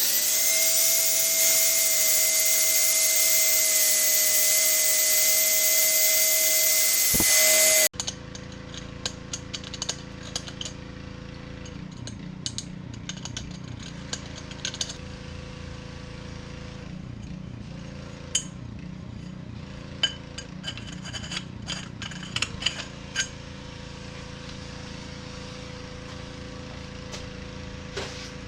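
A power tool cutting metal conduit runs loud and steady with a high whine for about eight seconds, then cuts off suddenly. After that come quieter rasping strokes and light clinks as the rough cut end is deburred and filed.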